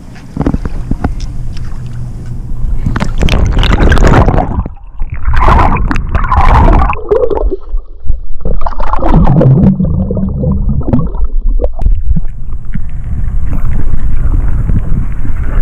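Water sloshing and gurgling around a small fishing boat, with wind rumbling on the microphone and irregular louder splashy bursts in the middle.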